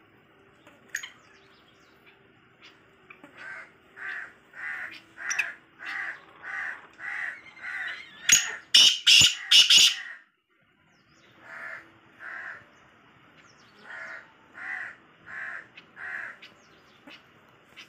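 Caged francolins (teetar) calling: a series of repeated harsh notes, a little under two a second. About eight seconds in there is a much louder burst of calls, then a short pause, then a second series of the same repeated notes.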